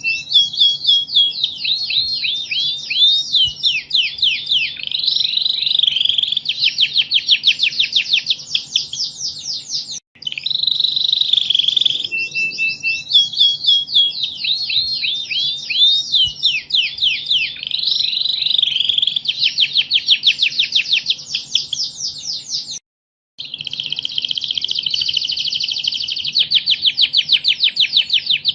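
Domestic canary singing a long, loud, continuous song of fast rolling trills and sweeping phrases. The song breaks off for a moment twice, about ten seconds in and again a little after twenty seconds, then carries on. A faint steady hum runs underneath.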